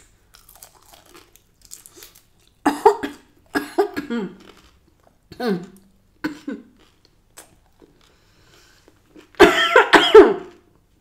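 A woman coughing in short fits, the last run near the end the loudest and longest, with faint chewing between. The coughing comes from spicy samyang-and-honey sauce catching the back of her throat.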